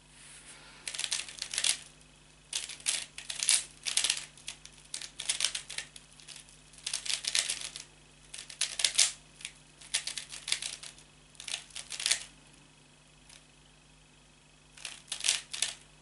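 Plastic 3x3 speedcube being turned by hand, clicking and clacking in rapid bursts of quick turns separated by short pauses, with a longer pause near the end: the execution phase of a blindfolded solve.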